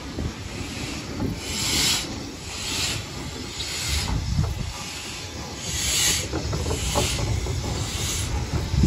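Peckett 0-4-0ST saddle-tank steam locomotive working slowly under load, its exhaust giving a few widely spaced hissing chuffs over a low rumble from the moving train.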